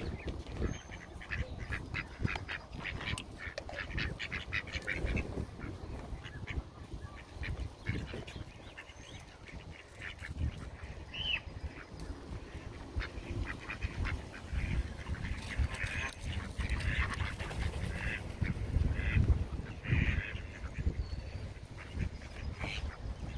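Mallard ducks and Canada geese calling around a flock of goslings: scattered short calls and quick runs of repeated calls, busiest in the first few seconds and again toward the end.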